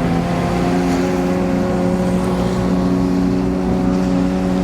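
Iguana amphibious boat's engine running steadily, a hum that steps up slightly in pitch about a second in.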